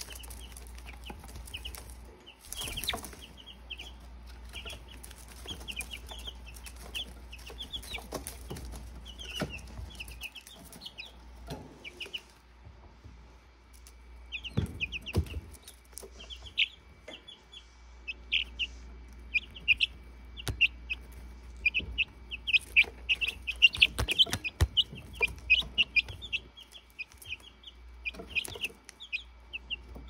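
Baby chicks peeping: many short, high calls, sparser in the first part, a brief lull near the middle, then busier and louder toward the end, with a few soft knocks among them.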